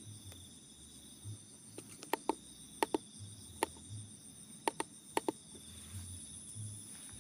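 Crickets chirping steadily in a faint night chorus of high, even tones. Through the middle come about nine sharp clicks, most in close pairs.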